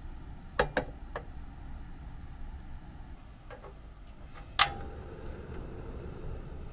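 A few quick metal clacks as a hot sandwich maker's lid is opened. About four and a half seconds in, a cassette gas stove's igniter knob is turned with one loud sharp click, and a steady hiss of the lit burner follows.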